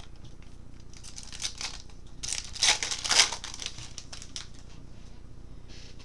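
Baseball card pack wrapper being torn open and crinkled by hand, a run of rustling and tearing that is loudest about two to three seconds in.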